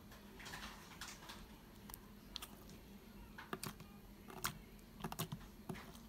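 Slime being squeezed and kneaded by hand, giving soft squishing with a scatter of small sharp clicks and pops that come thicker in the second half.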